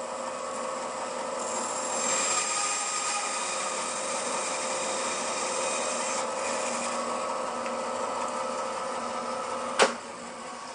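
Bandsaw running and cutting through a small hardwood block: a steady whine with cutting noise that swells about two seconds in as the blade makes the second shoulder cut of a dovetail lap joint. One sharp click comes near the end, and then the sound drops to a quieter running hum.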